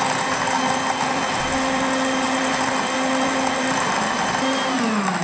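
Philips countertop blender running at full speed, blending a jar of mixed foods into a drink. Near the end the motor's pitch falls as it is switched off and spins down.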